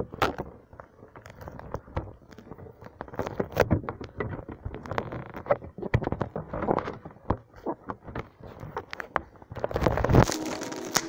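Handling noise from a phone being picked up and moved about: irregular knocks, rubs and scrapes right on its microphone, with a louder rush of rubbing near the end.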